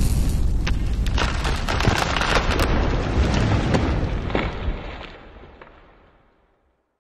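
Cinematic logo-reveal sound effect: a deep rumbling boom with scattered crackles. It fades away over about five seconds into silence.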